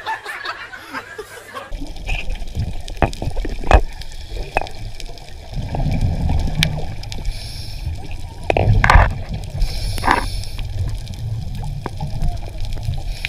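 Muffled underwater sound picked up by a diver's camera: a dense low rumble of water with scattered clicks and bubbling, and a couple of louder bubbling bursts about two-thirds of the way through. Crowd voices are heard briefly at the start.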